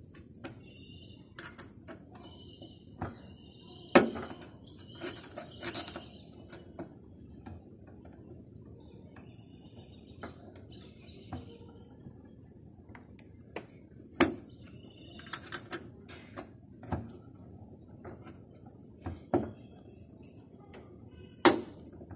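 Small flathead screwdriver working at the hood strut's upper end fitting, making a series of scattered metal clicks and taps. Three sharper, louder clicks stand out: about four seconds in, in the middle, and near the end.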